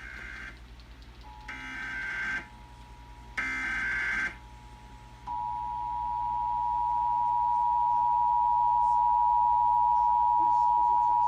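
Emergency Alert System header: the tail of one and two more short bursts of screeching digital data tones. They are followed by the EAS two-tone attention signal, two steady pitches sounded together, faint at first and loud from about five seconds in, announcing the national test message.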